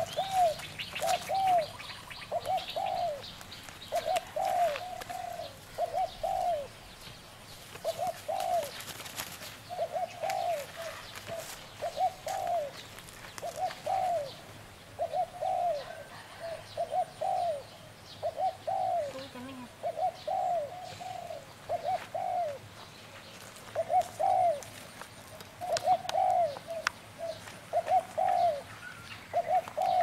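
A dove cooing over and over: short, soft, arched coos in twos and threes, repeating about every second.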